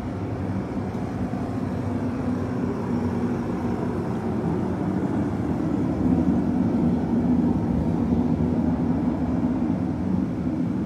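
A steady low rumble without clear pitch, getting a little louder about six seconds in.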